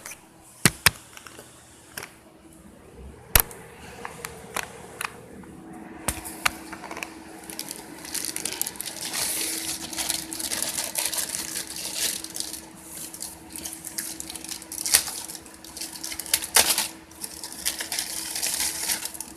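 Scattered clicks, taps and rustling from hands handling parts inside an open desktop computer case, over a steady low hum that grows stronger about six seconds in.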